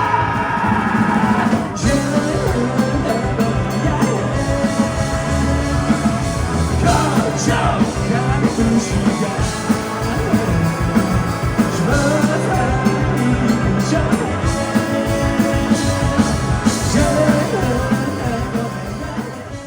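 Rock band playing live, with drums and a heavy low end under a singing voice; the sound falls away right at the end.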